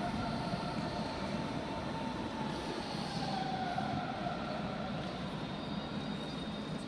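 Steady rumble and hum of an ICE high-speed train standing at the platform. A faint whine glides down in pitch a couple of seconds in.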